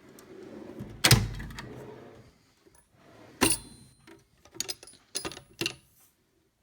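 Metal tool storage being handled: a sliding rumble with a loud knock about a second in, a sharp metallic clunk that rings briefly a little after three seconds, then several light rattles and clicks of loose metal tools.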